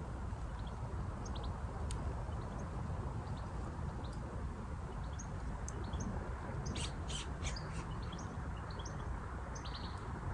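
Small birds chirping repeatedly in short high notes over a steady low outdoor rush. A brief run of clicks comes about seven seconds in.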